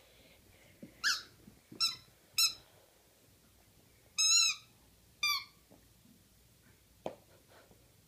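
A puppy chewing a squeaky dog toy, making it squeak five times in short high-pitched squeaks with the fourth one longer, then a single light knock.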